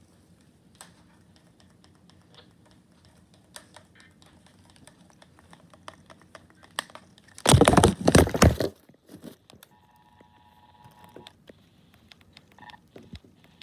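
A radio picking up the Emergency Alert System two-tone attention signal: two steady tones sound faintly together for about a second and a half, starting a little past two-thirds of the way in. Before that come scattered faint clicks and a loud noisy burst about a second long halfway through.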